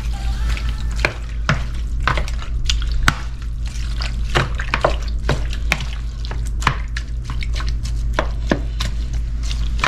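Wooden spoon stirring diced raw sierra fish and red onion in a plastic bowl, with irregular knocks and scrapes against the bowl about once or twice a second.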